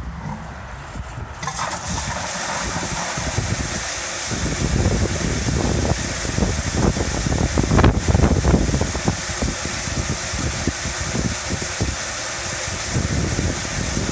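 Water gushing from a fill hose elbow into a plastic standpipe fill device and down into a polyethylene water tank, a steady rushing that grows louder about a second and a half in.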